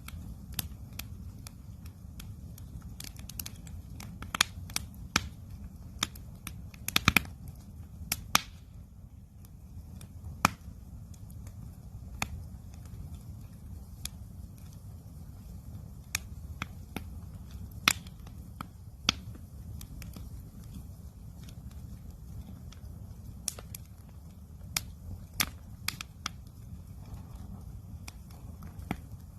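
Wood campfire crackling, with sharp pops at irregular intervals, a few louder ones bunched together about seven seconds in, over a steady low rumble.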